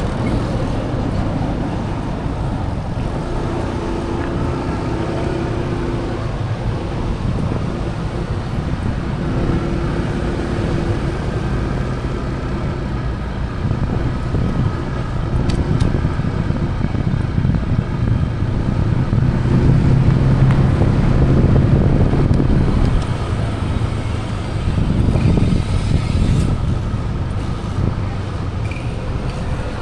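Road traffic noise: motor vehicles running steadily, with a louder engine hum passing by about two-thirds of the way in.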